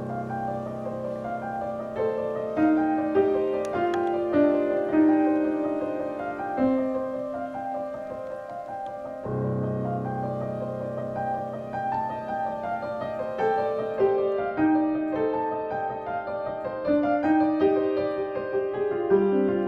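Piano music: a slow melody of single notes over held bass chords, with a new chord coming in about nine seconds in.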